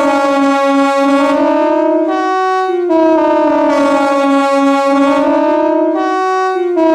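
KTG-10 outdoor warning siren sounding a loud multi-tone chord whose pitch sags slowly and comes back up, in waves about three seconds long.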